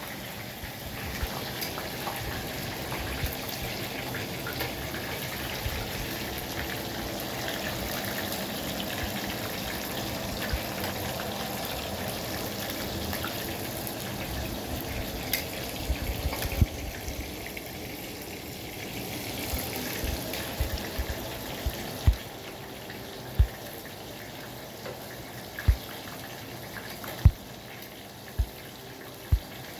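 Egg rolls frying in hot oil: a steady sizzling hiss that eases about halfway through, with scattered sharp pops and taps.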